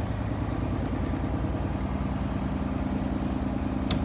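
Engine idling steadily with a fast, even pulse, and a short sharp click near the end.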